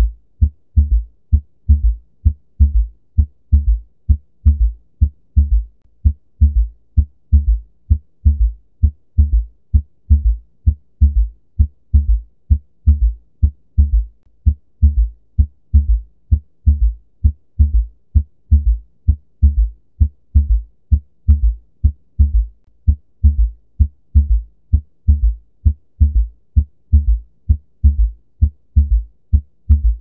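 Heart sounds with a third heart sound (S3): each cycle is a low thud for S1, then S2 followed closely by a softer, low-pitched S3, repeating steadily in a three-beat gallop rhythm. The S3 is the extra early-diastolic sound typical of heart failure.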